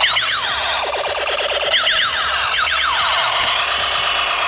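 Battery-powered toy assault rifle playing its electronic firing sound effect: a string of falling electronic sweeps, one after another.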